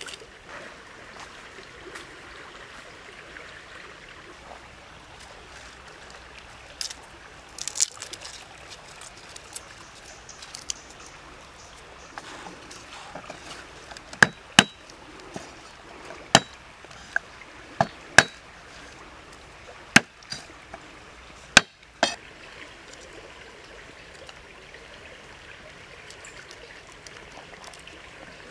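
Cleaver striking a round wooden chopping block about seven times, irregularly spaced through the middle of the stretch, as garlic cloves are cut. Behind it runs the steady trickle of a stream.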